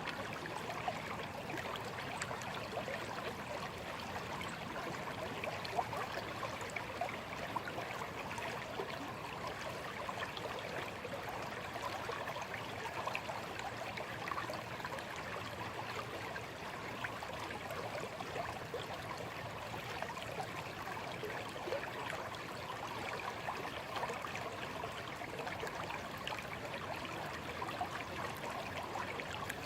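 A small, shallow stream flowing steadily, water trickling and gurgling over stones.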